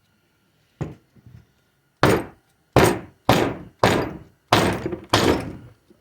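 One knock, then six heavy knocks a little over half a second apart: the 1-2 accumulator of a 4L60E transmission being knocked loose on the workbench.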